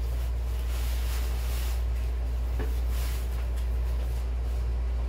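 Steady low hum, with faint rustling as someone moves about.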